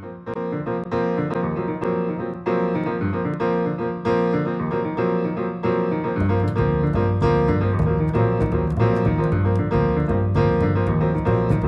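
Background music led by piano, playing a steady pattern of notes; a deeper bass part joins about six seconds in.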